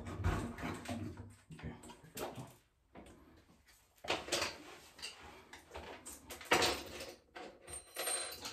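Irregular clicks, knocks and rustles of hands handling small metal shower-fixture parts and a screwdriver, with short quiet gaps between them.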